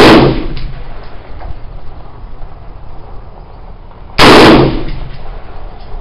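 Dominion Arms AR-15 rifle in 5.56 firing two shots about four seconds apart, one right at the start and one about four seconds in. Each shot is loud enough to clip the recording and trails off in a short echo.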